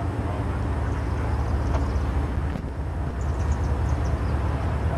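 BNSF diesel locomotive approaching, its engine giving a steady low drone that grows a little louder as it comes in.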